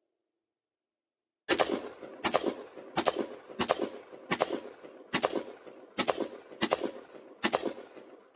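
AR-15 rifle fired in a rapid semi-automatic string: about ten shots starting about a second and a half in, roughly one every three-quarters of a second, each crack trailed by a short echo.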